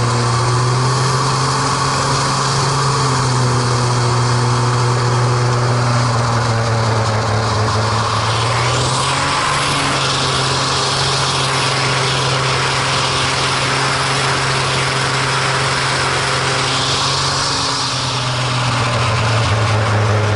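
MX2 aerobatic aircraft's piston engine and propeller running at high power, heard from inside the cockpit over a steady rush of air. The engine note shifts slightly in pitch about nine seconds in and again near the end as the plane manoeuvres.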